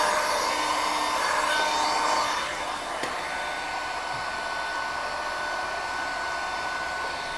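Handheld electric heat gun blowing a steady rush of hot air with a faint whine. It is louder for the first two seconds or so, then drops to a lower steady level.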